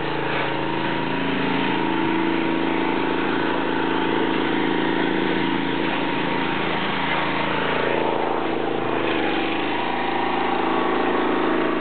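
Engine-driven pressure washer running steadily with the hiss of its water spray, the engine note dipping briefly about nine seconds in.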